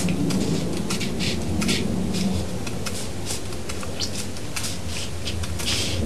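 Salt shaken from a small shaker onto wet ink on watercolour paper: a quick, irregular run of short hissy rattles, several a second, over a steady low hum. This is the wet-paint salt technique, where the pigment gathers around the grains.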